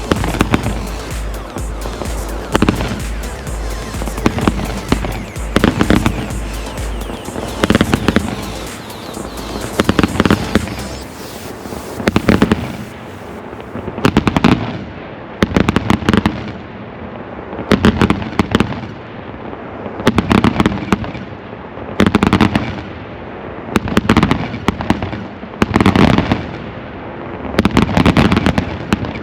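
Professional display fireworks: a dense barrage of bangs and crackling for about the first half, then aerial shells bursting about every two seconds, each bang trailing off in crackle.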